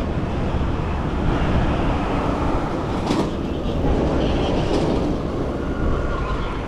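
Steady rumble of wind on an action camera's microphone and bicycle tyres rolling over the road as a mountain bike is ridden, with a couple of brief rattles about three and five seconds in.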